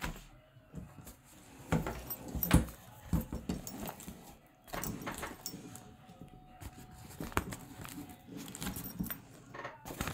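Handling noise from a folding camping chair backpack: irregular clicks, knocks and light metallic clinks with rustling between them, the sharpest knock about two and a half seconds in.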